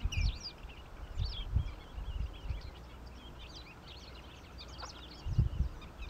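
Many birds calling at once: a dense, steady twitter of short, high chirps. A few low thumps sound under it, the loudest about five and a half seconds in.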